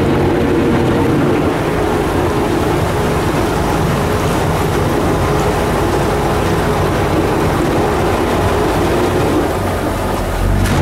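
Motorboat engine running steadily under way, a constant drone, with the rush of water along the hull.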